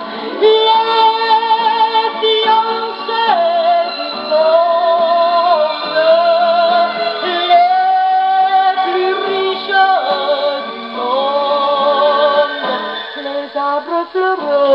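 Music playing from a 78 rpm shellac record on an HMV 102 wind-up gramophone: a melody of held, wavering notes, thin-sounding with no deep bass or top end.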